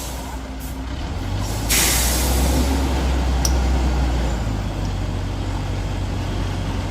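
Heavy truck's diesel engine pulling hard with a deep steady drone, and a burst of air-brake hiss about two seconds in.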